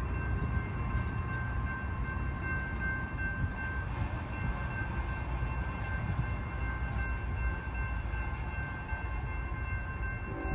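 Railroad grade-crossing warning bell ringing steadily as the crossing gates come down, over a low rumble. A train horn starts to sound right at the end.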